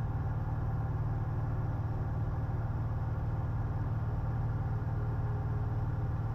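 Steady drone of a 1967 Cessna 172H's Continental O-300 six-cylinder engine and propeller, heard from inside the cabin.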